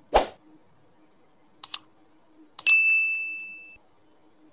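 Sound effects of an animated subscribe-and-like button: a short whoosh, then two quick mouse clicks, then another click and a single bell ding that rings out for about a second.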